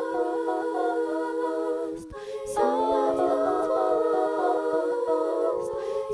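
Wordless a cappella vocal harmonies: several layered voices humming sustained chords, with a brief break for breath about two seconds in.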